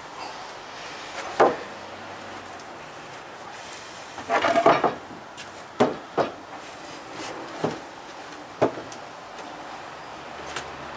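Heavy treated-pine sleepers knocking against each other and the timber frame as they are handled into place: a single knock, a quick clatter of knocks about four seconds in (the loudest moment), then several separate knocks.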